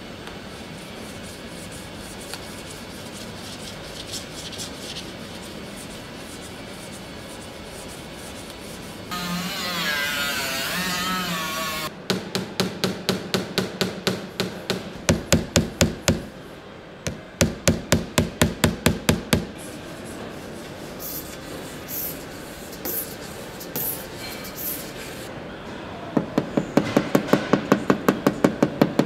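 Hand panel-beating of a car body panel: runs of quick hammer blows on sheet metal, about four a second, with sparser single taps between. Before the hammering there is a steady scraping on the metal and a louder rasping for a few seconds.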